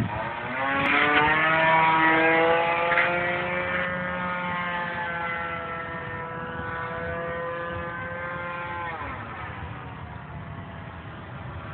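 Radio-controlled P-51 Mustang model's nitro glow engine running at speed in flight, a high buzzing tone. Its pitch rises in the first second or so, holds while the sound slowly fades, and drops about nine seconds in.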